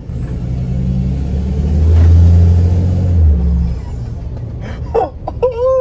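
Cummins turbo-diesel pickup, freshly tuned and emissions-deleted, accelerating hard: a loud, deep exhaust drone that builds over the first two seconds with a rising high whistle, then eases off after about three seconds as he lifts. Heard from inside the cab.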